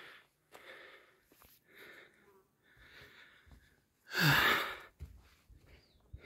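A hiker breathing hard while climbing trail stairs, short puffs of breath about once a second, then a loud heavy sigh a little after four seconds in.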